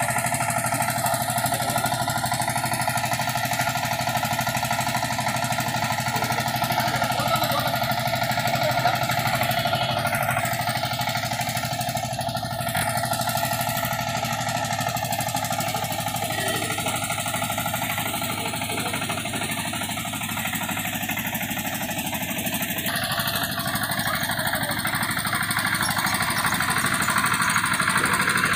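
An engine idling steadily, a continuous even running sound with no revving.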